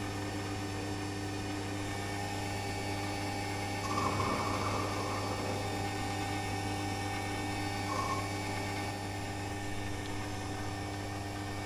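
Small benchtop metal lathe running with a steady motor hum. Brief cutting noise rises about four seconds in and again near eight seconds as the tool is fed into the work by hand.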